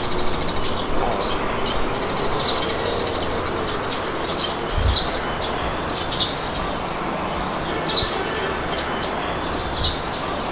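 Steady wind blowing, with birds chirping in short calls every second or two. A brief low rumble comes about five seconds in.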